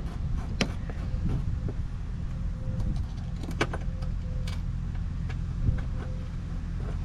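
A few sharp clicks and light taps, from hardware and tools being handled during car work, over a steady low rumble.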